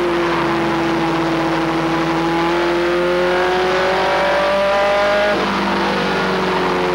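Race truck's engine heard from inside the cab, running hard under racing load; its pitch climbs for a few seconds, then drops abruptly a little past five seconds in as the throttle comes off.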